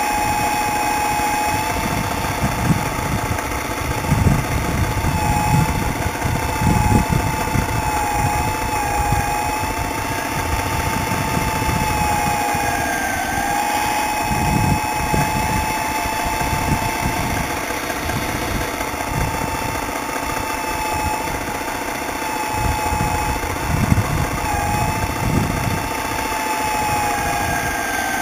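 Hydraulic pump of a radio-controlled miniature CAT 320 excavator whining steadily, its pitch dipping briefly now and then as the arm works under load digging soil. Irregular low rumbles and knocks from the machine's movement run underneath.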